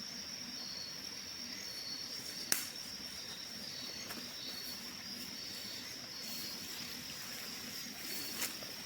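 Insects chirring steadily in a high-pitched, unbroken drone, with a single sharp click about two and a half seconds in.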